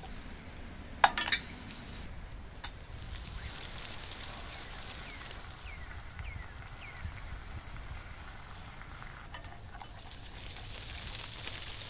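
Mustard cream sauce simmering in a frying pan over charcoal, a steady quiet sizzle. About a second in, a sharp clink as star anise is dropped into the pan. A few faint falling chirps come midway, and there are light clicks of chopsticks stirring near the end.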